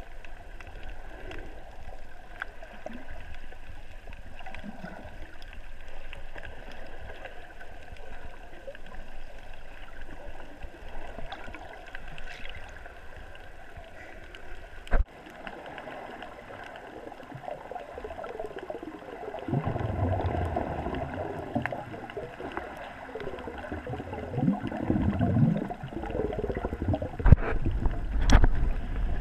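Muffled underwater water noise picked up by a camera below the surface, with a single sharp click about halfway. The noise swells in the last third into gurgling and bubbling, with heavy low knocks near the end.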